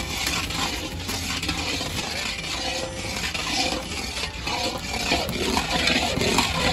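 Long metal spatula scraping and clinking against a large iron kadai while stirring a thick, bubbling mix of powder and sugar syrup for burfi, with irregular scrapes and knocks throughout.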